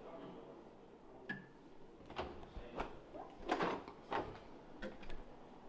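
Several scattered knocks and clicks, like doors or things being handled, with the loudest cluster a little past halfway.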